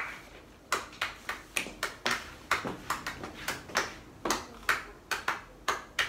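A run of sharp, irregular clicks or taps, about two or three a second.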